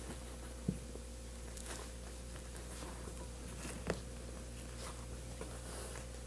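Black leather upholstery rustling as hands fold it back and smooth it down over a button-tufted chair back. There are two short knocks, about a second in and near four seconds, over a steady low hum.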